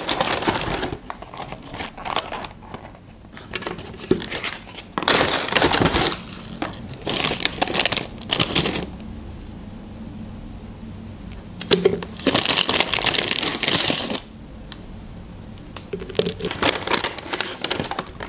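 Paper takeaway bag and paper food sleeves crinkling and rustling as food is taken out, in about five bursts of a second or two with pauses between.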